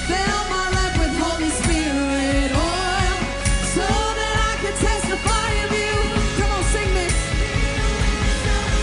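Live worship band music: a sung melody without clear words over a steady beat.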